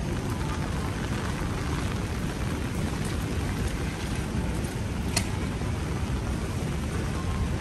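Heavy rain falling on a paved city street: a steady hiss with a low rumble underneath, and one sharp click about five seconds in.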